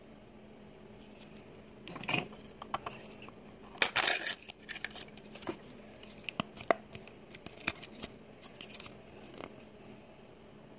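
Small plastic toy packaging handled between fingers: a miniature printed shopping bag being unfolded, with crinkling, rustling and sharp little clicks, loudest about four seconds in.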